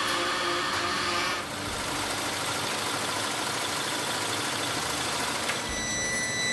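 Shoe-making machinery running: motor-driven buffing and polishing wheels and other factory machines giving a dense, steady whirring noise. The noise changes about a second and a half in, and a high steady whine joins near the end.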